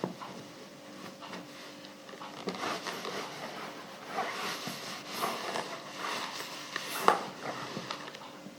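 Clothes being ironed: uneven rustling and sliding of fabric under the iron for several seconds, with a sharp knock about seven seconds in.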